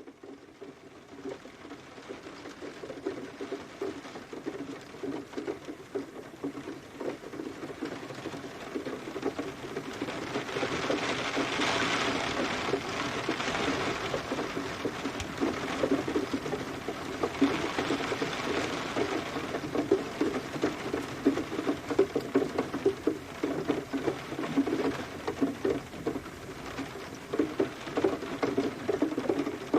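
Rain falling, a dense patter of drops with a hiss above it. It fades in over the first several seconds, and the hiss swells heavier twice in the middle.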